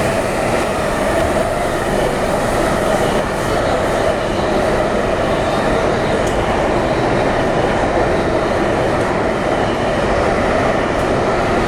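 Metro train running through a tunnel, heard from inside the car: a steady, even rumble of wheels and motors with a faint rhythmic clack from the track.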